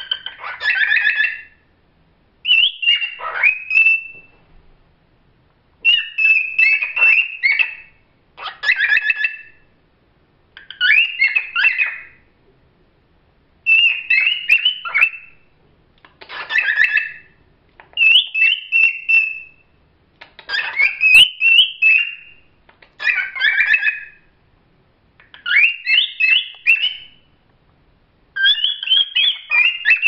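Pet cockatiels singing: about a dozen short phrases of whistles and warbling chatter, with brief pauses between them.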